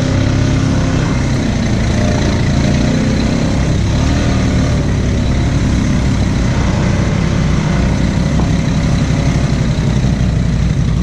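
ATV engine running steadily at or near idle, close to the microphone.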